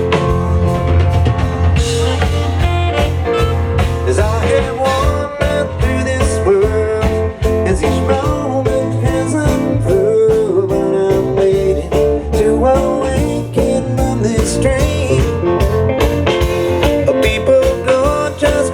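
Live band playing a blues-style song: guitar with bending melodic lines over a steady drum beat.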